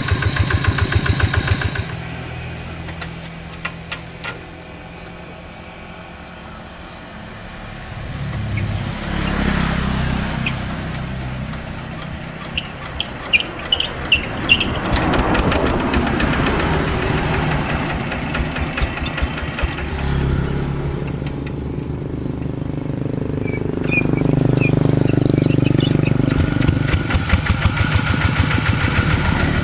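Single-cylinder diesel engines of walking tractors being started with a hand crank: the crank spins each engine up with a rising whir and clicks, and the engine catches and runs with a fast, even thudding.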